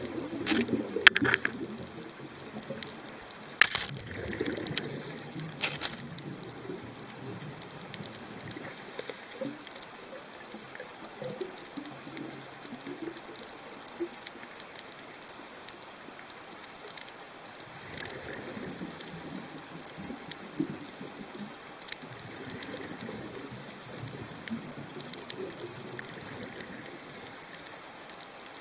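Underwater ambience at a coral reef: a steady watery hiss with gurgling bubbles that swell and fade now and then, and a few sharp clicks in the first few seconds.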